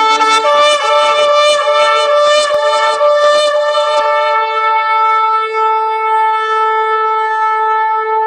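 A horn-like wind instrument sounding: quick, broken notes for about four seconds, then one long held note.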